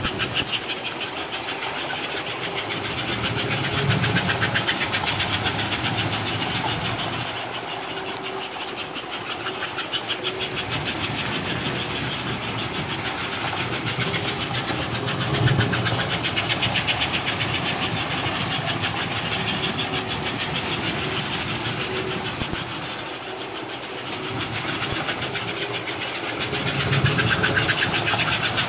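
American Flyer S-gauge steam locomotives, a 293 Pacific and a 336 Northern, running on the layout track: a rapid, steady chuffing from their choo-choo smoke units over motor hum and wheels rolling on the rails. The sound swells louder three times, roughly every eleven seconds, as a train comes past close by.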